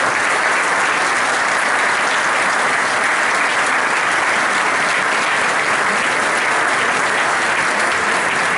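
Large audience applauding steadily in a lecture hall, a dense even clapping that holds without fading.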